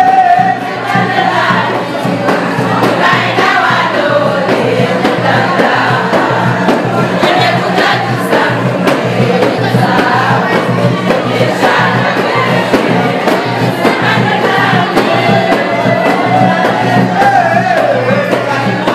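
A group of women singing together in chorus, with a steady low hum underneath.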